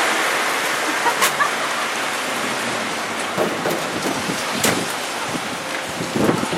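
Strong hurricane wind rushing steadily, with several gusts buffeting the microphone in the second half.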